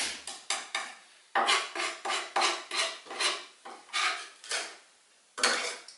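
Chef's knife chopping a garlic clove on a wooden chopping board: a run of quick chops, about three a second, starting about a second in, with lighter clicks before it and a single knock near the end.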